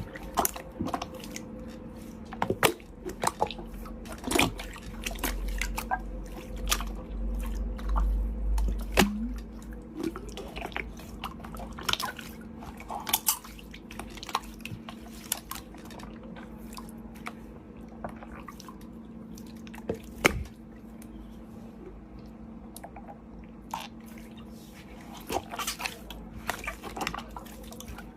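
Slime being squished and worked, making irregular wet clicks and pops over a faint steady hum.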